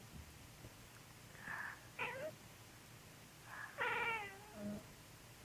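Domestic cat, roused from sleep by a sneeze, giving a few quiet short meows: a rising one about two seconds in and a longer, falling meow about four seconds in.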